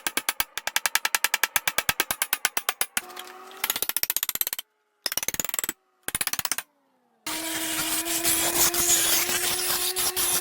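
Metalworking sounds on a forged railroad-spike knife. First comes a rapid run of sharp strikes, about ten a second. After a few abrupt silent cuts, an electric grinder runs steadily with a hiss and a held hum, grinding the steel.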